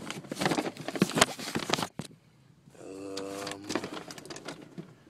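Handling noise from cardboard fireworks packaging being moved about: dense rustling, crinkling and knocking for about two seconds, then scattered clicks. About halfway through, a brief steady hum-like tone lasts about a second.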